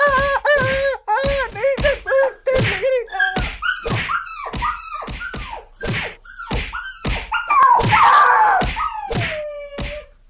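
Repeated stick blows landing on a body, about two a second, each followed by a short pained yelp. About eight seconds in comes one louder, longer cry that slides down in pitch.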